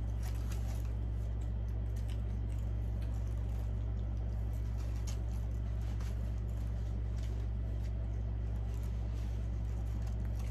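A person chewing and smacking on fried chicken wings close to the microphone: scattered soft, wet mouth clicks over a steady low hum.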